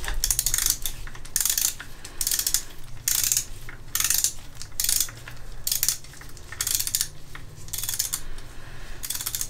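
Hand ratchet clicking in short bursts, about one a second, as the cam carrier bolts on a Honda CB750 SOHC cylinder head are run down before final torquing.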